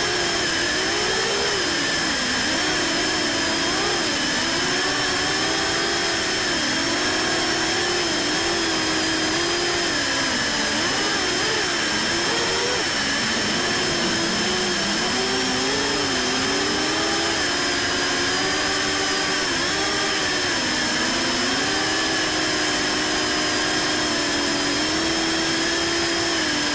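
Brushless motors of a 6-inch FPV quadcopter (T-Motor Velox 2207 2550KV) spinning their propellers in flight: a buzzing whine whose pitch keeps rising and falling with the throttle, with steady high whistles above it.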